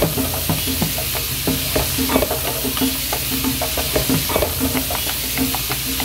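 Onion, bell pepper and carrot sizzling in rendered pork fat in a caldero as they are stirred together with fried pork to make a sofrito. The stirring utensil scrapes and knocks against the pot many times over a steady sizzle.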